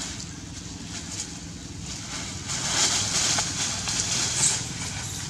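Rustling and crackling of a plastic bag and leaves as a monkey moves with the bag in the branches, louder from about halfway through, over a steady low rumble of wind on the microphone.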